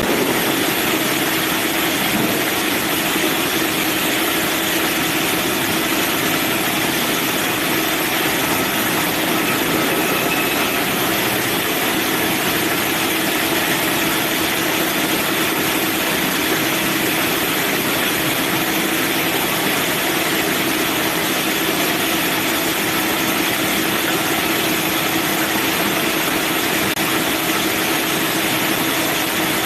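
Manual sawmill bandsaw running steadily: an even, loud machine noise with a constant hum.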